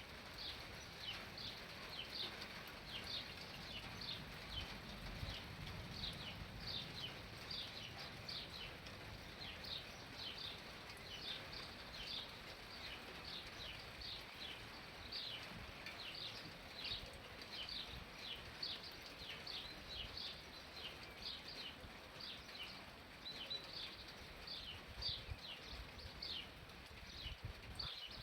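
Steady run of short, high chirps, about two or three a second, from a small animal, over a low rumble.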